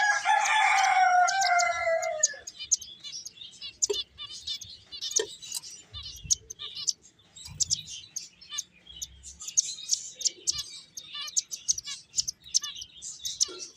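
Finches chirping in quick, high, twittering bursts. In the first two seconds or so a loud, drawn-out call slides slowly down in pitch over the chirping.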